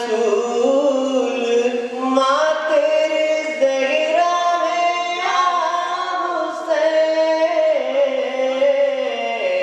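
A man singing solo without instruments, a slow melody of long held notes that waver and slide between pitches, sung into a microphone.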